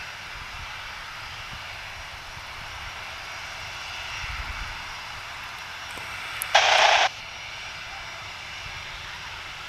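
Boeing 737 jet engines running steadily at low power as the airliner rolls along the runway, a distant whine over a low rumble. A little past halfway a sudden loud burst of hiss lasts about half a second.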